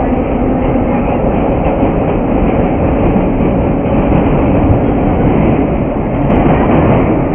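A 1931 New York City subway car running steadily, heard from inside the car: a loud, even noise of wheels on rails and running gear as it moves out through the tunnel.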